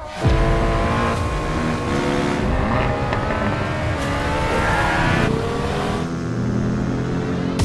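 Vehicle engine revving hard, its pitch climbing steadily for about four seconds before the sound changes and drops away after about five seconds.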